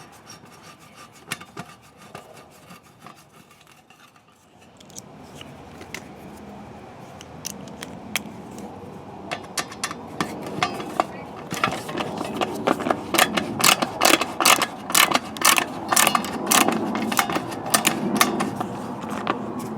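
Screwdriver working the mounting screws out of an air conditioner's disconnect box: scraping and rubbing, then a run of sharp irregular clicks, a few a second, through the second half.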